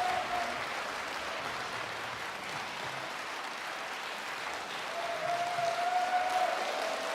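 Audience applauding steadily at the end of a song performance, with a faint held tone coming through near the start and again from about five seconds in.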